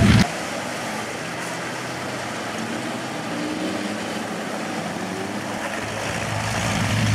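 Distant truck engines over open-air background noise, after a close engine sound cuts off abruptly right at the start. A pickup truck's engine grows louder near the end as the truck comes close.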